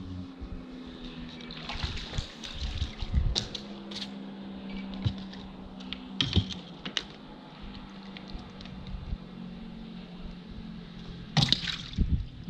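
Water splashing and sloshing in several bursts, the loudest near the end, over a steady low motor hum.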